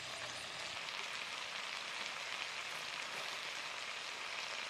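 Spotted-dove meat and vegetables sizzling in a pan, a steady even hiss as the stir-fry cooks.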